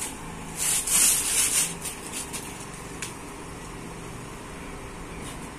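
Handling noise from a landing net and its rod handle: a few short rubbing scrapes in the first two seconds, then a single click about three seconds in.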